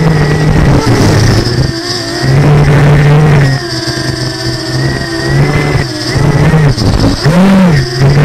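Small camera drone's electric motors and propellers whining loudly. The pitch dips and recovers several times as the throttle changes, with a quick rise and fall near the end.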